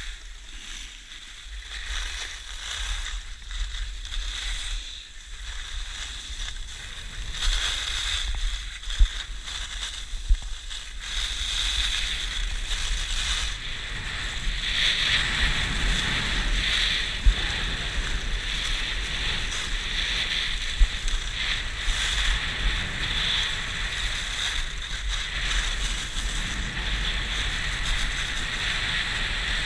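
Skis sliding and scraping over groomed snow, a steady hiss that grows louder about halfway through as the skier picks up speed, mixed with low wind rumble on the microphone. A few sharp clicks stand out.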